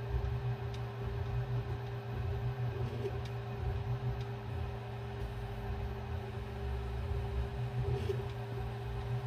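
Creality Ender 3 S1 Pro 3D printer working as a pen plotter: a steady hum from its fans, with its stepper motors whirring briefly now and then as the marker head moves, and a few faint ticks.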